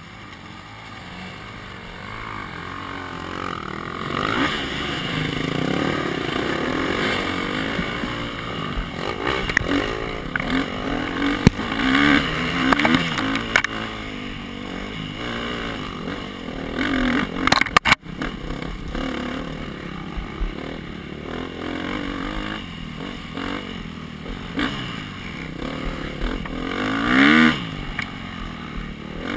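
Dirt bike engine revving up and down as it is ridden hard along a rough trail, heard from on board the bike. Several sharp knocks and rattles come through over the engine.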